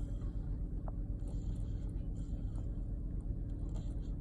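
A sleeping baby's snoring breaths, short hissy puffs about once a second, over a steady low rumble.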